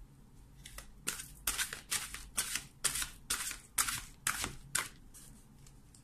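A deck of oracle cards being shuffled in the hands. It goes as a run of soft card strokes, a little more than two a second, which starts about a second in and stops about five seconds in.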